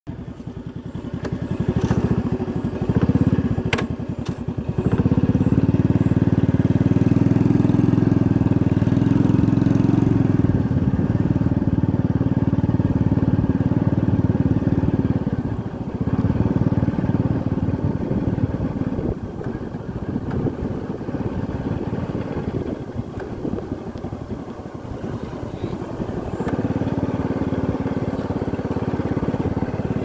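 Motorcycle engine heard from on board, running along at a steady pace. It is loudest and steadiest for the first half, runs softer and more unevenly after that, and picks up again near the end. A few sharp knocks in the first few seconds.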